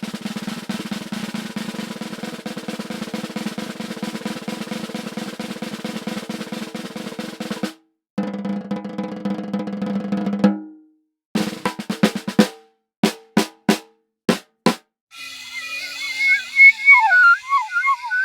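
Cartoon sound effects in a row: a snare drum roll lasting about eight seconds, then a shorter roll, then a handful of separate sharp hits. Near the end comes a wavering, warbling whistle-like tone.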